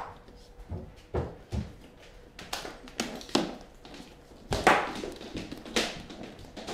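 Irregular footsteps, knocks and scuffs as a person stumbles along a hallway, hand pressing and bumping against the wall, the loudest thump about four and a half seconds in. A faint steady hum runs underneath.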